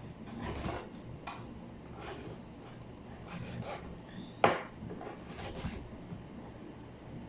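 Knife cutting raw beef into small pieces on a cutting board: irregular slicing strokes and scrapes, with one sharper knock of the blade on the board about four and a half seconds in.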